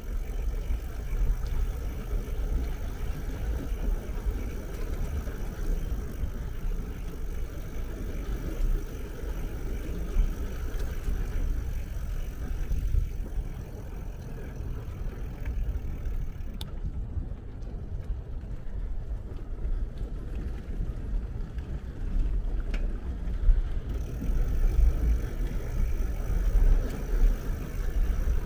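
Wind buffeting the microphone while riding a folding bike, with the low rumble of its tyres rolling over wooden boardwalk planks.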